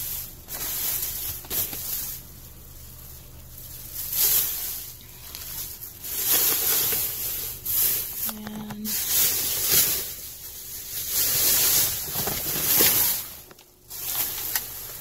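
Plastic trash bags rustling and crinkling in irregular bursts as they are handled and pulled open by hand.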